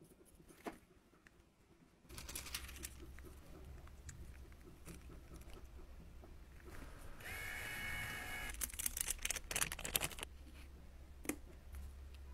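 Close-up handling sounds of pressed eyeshadow being repaired: a metal spatula scraping and crumbling the powder and a clear acrylic block pressing it flat, with small scratchy clicks over a low steady hum. A brief high squeal comes about seven seconds in.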